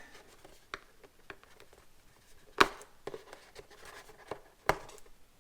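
Hands working at a sealed cardboard toy box to get it open: scattered light clicks and rustles of the packaging, with two sharp, louder clicks, one about two and a half seconds in and one near the end.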